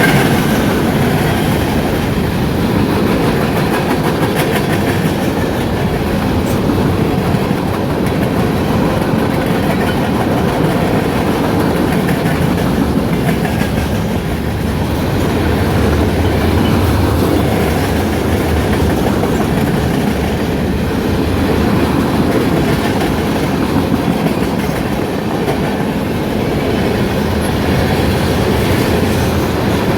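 Freight cars of a CSX train rolling past, a steady rumble of steel wheels on the rails.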